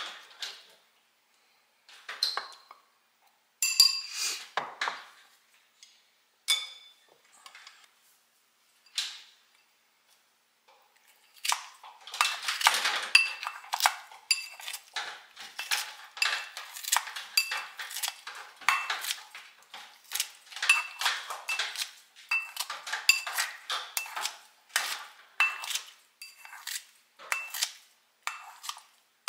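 Chopsticks clinking and scraping against a ceramic bowl as kimchi is moved into it, then from about twelve seconds in, kitchen scissors snipping the kimchi inside the bowl over and over, about two snips a second, the blades clicking against the ceramic.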